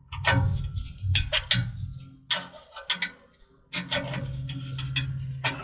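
Ratchet clicking in short, irregular runs as a bottoming tap is worked down the exhaust pipe's sensor bung, chasing the last threads at the bottom of the hole. A low steady hum comes in for about the last two seconds.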